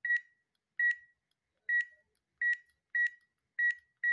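Chainway handheld mobile computer's barcode scanner beeping once for each successful scan: seven short, high beeps at irregular intervals of about half a second to a second. Each beep confirms a good read as the scanned code is entered into the spreadsheet.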